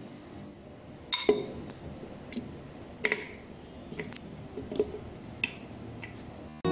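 Mango cubes dropped into a plastic blender jar, landing one after another with soft, wet taps against the jar and blade, several in all at uneven intervals.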